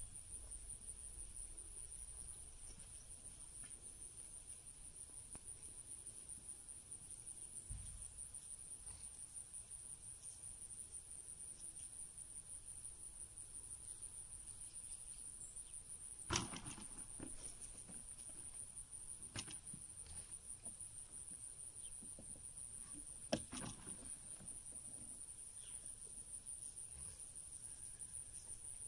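Faint, steady high-pitched insect chorus with a fine pulsing trill. A few sharp knocks cut through it, the loudest about halfway through and again about three-quarters of the way through.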